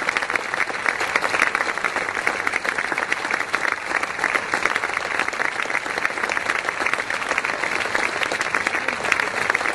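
A crowd applauding: many hands clapping together at a steady, dense pace throughout.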